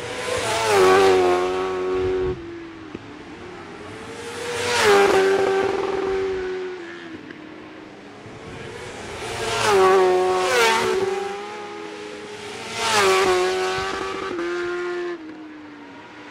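Racing superbikes passing one after another, four in all, each engine note swelling to a peak and falling in pitch as it goes by. Two of them cut off sharply as the throttle is shut.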